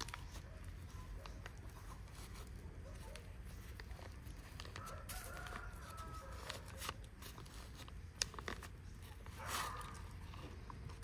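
Faint chicken clucking and calls, loudest about nine and a half seconds in, with scattered sharp taps and a click about eight seconds in.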